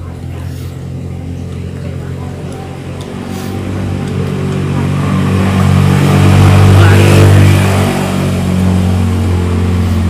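A motor vehicle engine, a low steady hum that grows louder to a peak about seven seconds in, then eases off.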